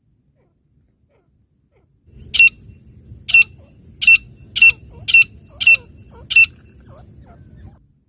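Francolin (teetar) calling: seven loud, sharp, shrill notes over about four seconds, starting about two seconds in, over a steady high whine and a low rumble.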